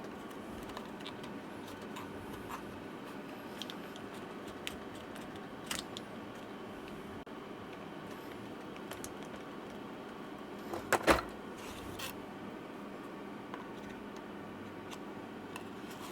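Scattered small clicks and scrapes of hands and a tool working on an opened laptop's battery and adhesive, with a louder cluster of sharp clacks about eleven seconds in, over a steady low hum.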